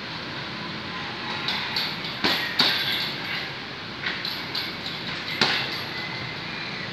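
Boxing gloves striking a hanging Fairtex heavy bag: a few irregular punch impacts, loudest about two and a half seconds in and again near five and a half seconds, over steady background noise.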